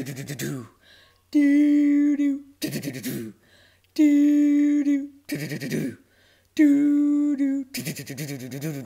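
A person humming a makeshift theme tune: three long held notes, each about a second, alternating with quicker, wavering vocal runs.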